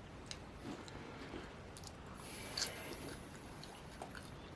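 Faint chewing and wet mouth sounds of someone eating fast food, with scattered small clicks. A brief, louder rustle-like noise comes a little over two seconds in.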